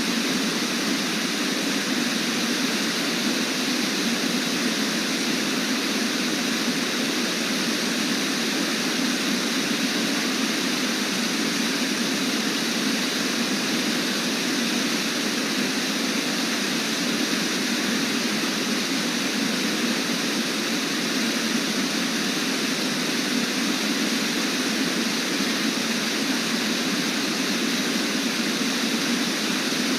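Brooks Falls rushing steadily: a constant roar of falling water.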